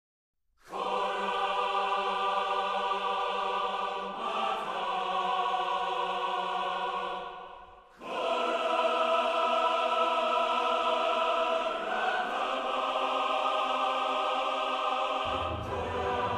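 Background music of long, held chords that change every few seconds. It fades almost out for a moment about halfway through, then swells back on a new chord, and a low bass note comes in near the end.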